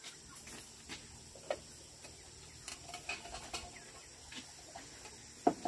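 Faint farmyard background with scattered short bird calls and light ticks, and one louder call or knock near the end.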